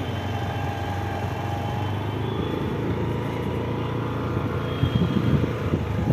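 Motorbike engine running steadily while riding, with wind and road rumble; a few louder bumps about five seconds in.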